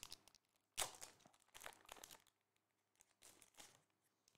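Foil trading-card pack wrapper being torn open and crinkled by hand, in a few short rustles, the loudest about a second in.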